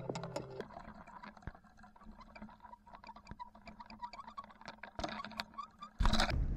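The tail of background music stops about half a second in, leaving faint irregular clicks and ticks in the water over a low hum. Near the end, a sudden loud rush of wind and water noise cuts in.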